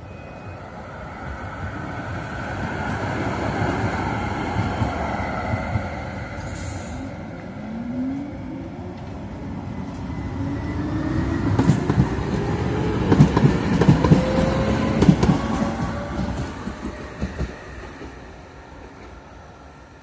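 Light-rail trams passing over a level crossing: an electric motor whine rising in pitch as a tram picks up speed, with wheels clacking over the rail joints, loudest a little after the middle and fading near the end.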